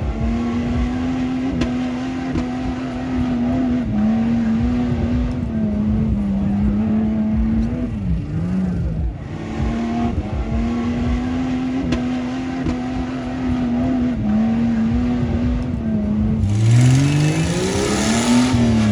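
Off-road vehicle engine running at a steady, held rev with small wavering dips. Near the end it revs up hard, rising in pitch and growing louder.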